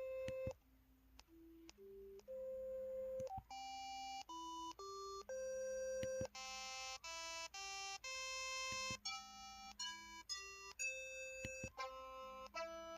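Keypad button tones of a KTF X3500 mobile phone: a run of short electronic notes, one per key press, stepping up and down in pitch like a little tune, with a few faint clicks among them.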